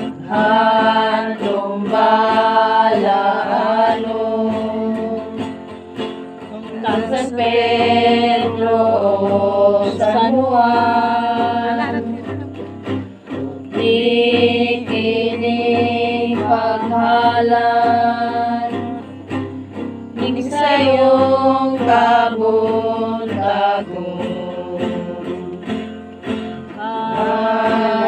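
A group of voices singing a song together to guitar accompaniment, in phrases of long held notes.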